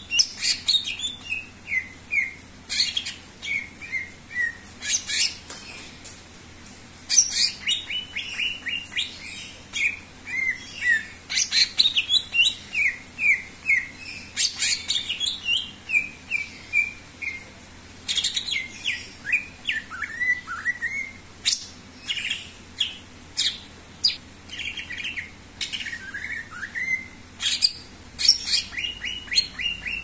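Cucak ijo (green leafbird) singing in full 'gacor' song: a rapid, near-unbroken string of sharp chirps, clicks and short falling whistles, with only brief pauses.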